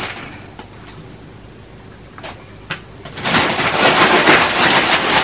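A quiet room with two soft ticks, then, about three seconds in, gift wrapping paper being torn and crumpled in a loud, continuous crackle as a present is unwrapped.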